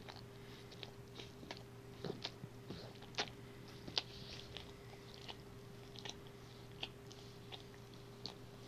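German Shorthaired Pointer grooming himself with his tongue: irregular wet licking smacks and slurps, the two loudest a little over three and four seconds in.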